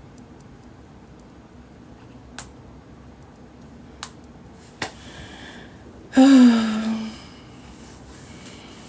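Three light, sharp clicks a second or so apart, then a short vocal sound from one person, held for under a second and falling slightly in pitch, about six seconds in.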